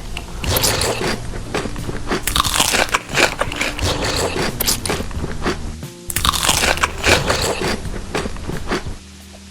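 Crunchy food being bitten and chewed close to the microphone, a dense run of crisp crunches that gets louder about two seconds in and again about six seconds in. Background music plays underneath.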